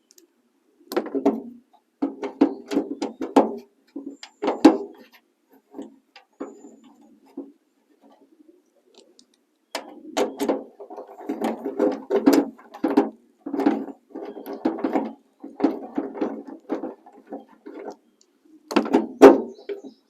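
Ratchet wrench clicking in quick runs as it backs out a 13 mm bolt holding a tailgate latch assembly, with a metallic ring from the tailgate. The clicking comes in bursts, pausing for several seconds in the middle.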